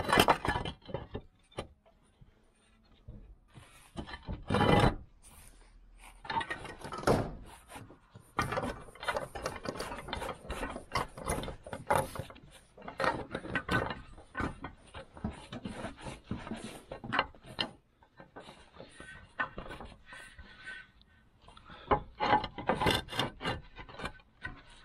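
Clay roof tiles being handled and set back into place by hand: an irregular run of scraping, rubbing and knocking, tile on tile, with a few louder knocks.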